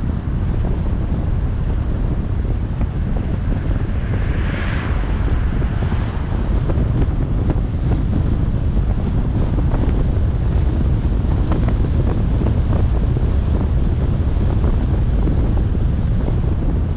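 Wind buffeting the camera microphone over a steady low road rumble from a car driving along a street. About five seconds in, an oncoming car swishes past, a brief swell that rises and falls.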